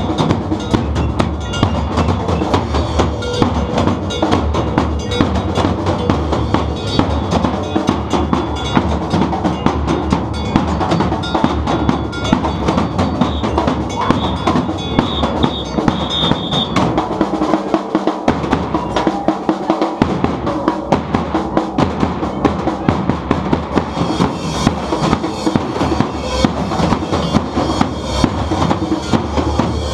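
Percussion band playing a steady, loud drum rhythm on bass drums and snare drums. The bass drums drop out for about two seconds a little past the middle, then come back in.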